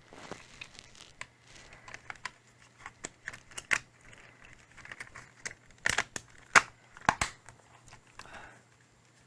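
Hands working on an opened PS4 controller, refolding its flat ribbon cable: scattered sharp plastic clicks and crinkling rustles, loudest around six to seven seconds in.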